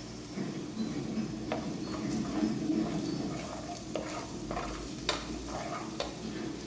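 Food sizzling as it browns in a pot while a spoon stirs it, with a few sharp clicks of the spoon against the pot.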